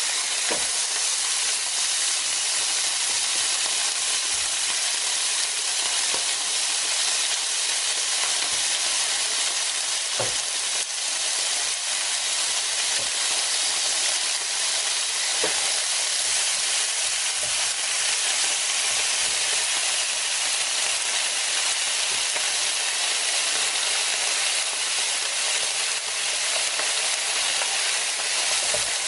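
Pork and king oyster mushroom sizzling on a round Korean barbecue grill plate: a steady, even hiss of fat frying. A few faint clicks come from metal tongs touching the plate as the meat is turned.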